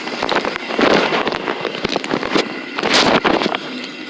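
Handling noise as a patient is shifted: irregular knocks, clatter and rustling, loudest in a short noisy burst about three seconds in.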